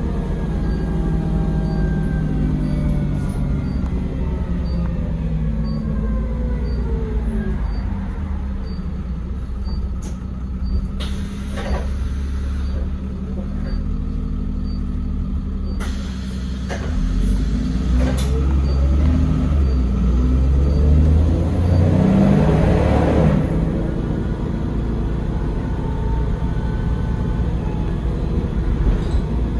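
Trident double-decker bus heard from the lower deck while driving: a steady low engine and road rumble, with the engine note rising and falling through gear changes. A rushing air hiss lasts about two seconds roughly two-thirds of the way through.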